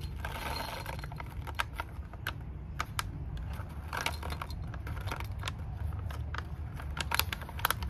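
Prenatal vitamin capsules poured from a pouch into a glass jar, landing in a run of light, irregular clicks.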